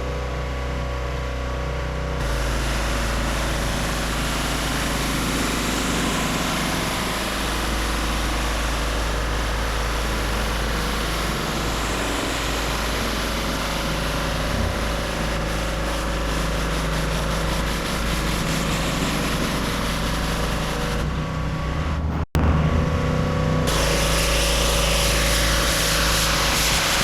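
Pressure washer running steadily, its motor's drone under the loud hiss of high-pressure water spray. The sound cuts out for an instant about 22 seconds in.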